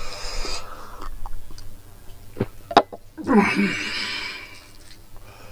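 Close-up eating sounds of a person chewing meat and rice with wet mouth clicks, and a short breathy vocal sound falling in pitch about three seconds in.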